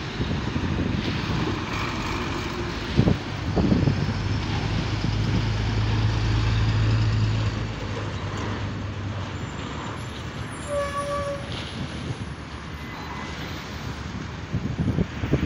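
Heavy diesel trucks, KamAZ among them, driving past amid steady city traffic noise. Two sharp knocks sound about three seconds in, a deep engine hum swells and fades through the middle, and a short high tone sounds about eleven seconds in.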